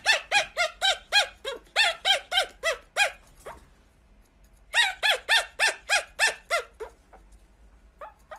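Pomeranian puppy yapping in rapid, high-pitched yips, about three or four a second, in two strings with a pause of about a second between them and a couple more near the end.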